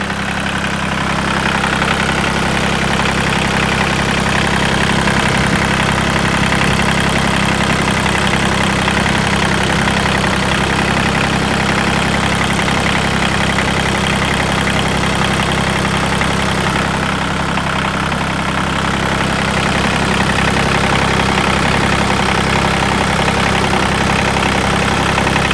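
New Holland TC33 tractor's three-cylinder diesel engine idling steadily.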